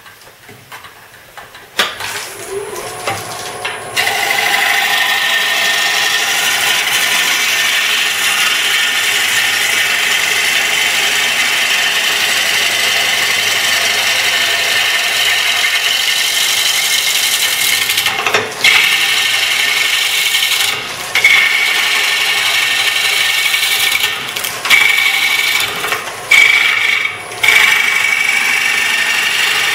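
Lathe tool cutting into a spinning ash bowl blank on a wood lathe, roughing out the outside of the bowl. The steady cutting noise starts about four seconds in and breaks off briefly several times near the end as the tool comes off the wood.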